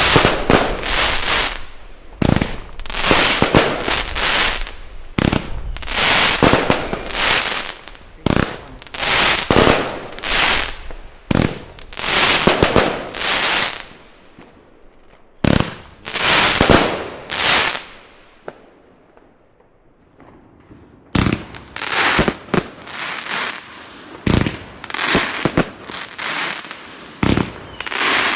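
Consumer firework battery firing shot after shot, each launch followed by a burst of noise lasting about a second. It pauses for a couple of seconds about two-thirds through, then resumes with quicker, closer-spaced shots.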